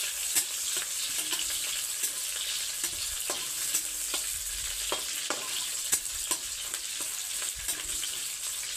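Chopped onions and green chillies sizzling in hot oil in a kadhai, stirred with a spatula that scrapes and clicks irregularly against the pan.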